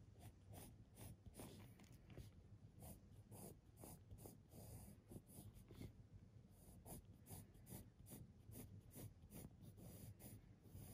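Faint scratching of a pencil drawn over paper in short repeated strokes, about two to three a second, as the lines of a figure sketch are gone over.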